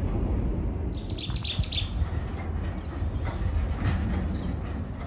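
Steady low rumble of a funicular car running along its track, with birds chirping over it in short clusters about a second in and again near four seconds.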